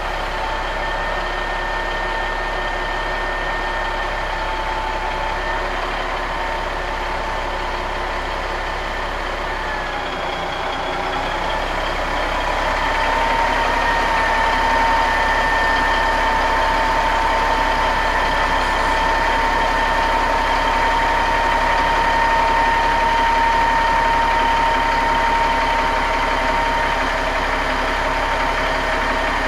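Marmon 57P semi truck's diesel engine running as the truck creeps around, with a steady high whine over the engine note. Near the middle the whine dips briefly, then comes back a little higher and the engine gets louder.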